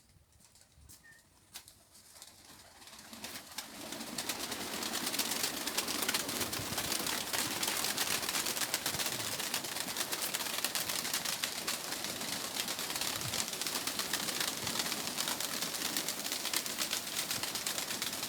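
Nikolaev pigeons cooing over a steady hiss with fine crackling, which swells in over the first four seconds.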